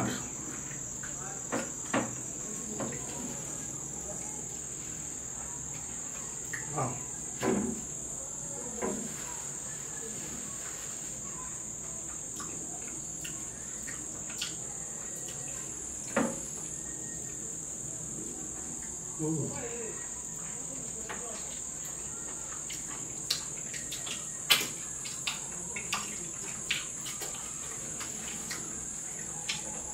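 Crickets chirring in one steady, high-pitched drone, with scattered short clicks and knocks from eating.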